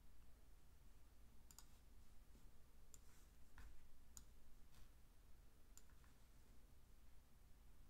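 Faint computer mouse clicks, a handful spaced irregularly, two of them close together like a double click, over a low steady room hum.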